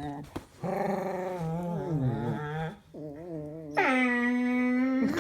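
Dog making long, wavering, Chewbacca-like moaning calls, about four in a row; the last one drops in pitch at its start and is then held steady.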